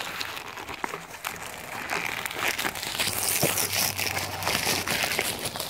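Plastic poly shipping mailer crinkling and rustling as it is handled and pulled open around a boxed kit, with many small sharp crackles and clicks.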